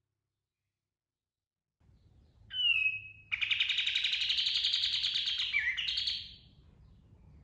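Kapas tembak songbird calling: after about two seconds of silence, a short sliding whistle, then a fast rolling trill of rapid repeated notes lasting about three seconds before it stops.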